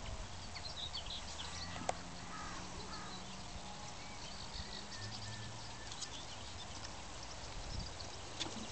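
Faint outdoor ambience with birds calling and chirping now and then. A few sharp taps, likely footsteps on the wooden boardwalk, sound near the end.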